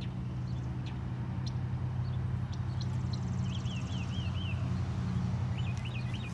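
A steady low machine hum, like an engine idling, with a small bird chirping in quick runs of short notes about halfway through and again near the end.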